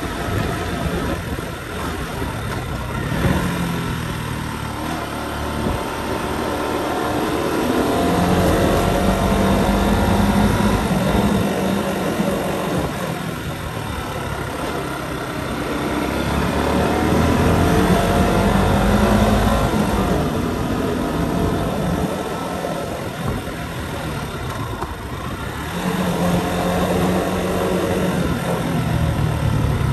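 Motorcycle engine running on the move, its pitch rising and falling as the throttle opens and closes through the bends, over a steady rush of wind and road noise. The engine swells louder twice.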